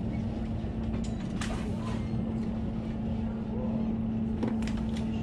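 Steady mechanical hum holding one constant pitch over a low rumble. There are a few sharp clicks and faint distant voices.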